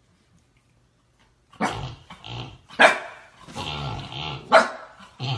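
A dog barking and growling: after a quiet start, sharp barks come about every second or so from a second and a half in, with rumbling growls between them.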